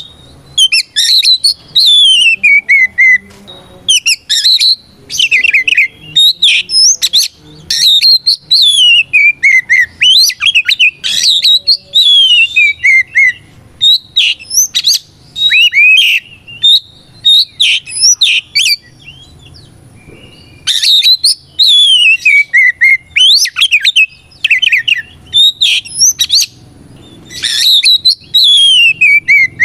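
Oriental magpie-robin singing loudly in full song: fast phrases of sharp notes, several of them long whistles that fall steadily in pitch, repeated again and again with only brief pauses between phrases.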